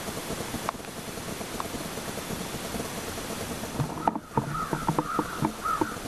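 Common ravens calling several times in the last two seconds over a steady hiss of light rain, muffled through an action camera's waterproof case, with a couple of small pops.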